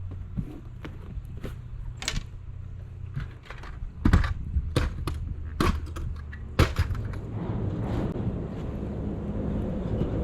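A series of irregular sharp knocks and clunks, about a dozen, over a steady low motor hum in a small fishing boat; the motor sound grows louder over the last couple of seconds.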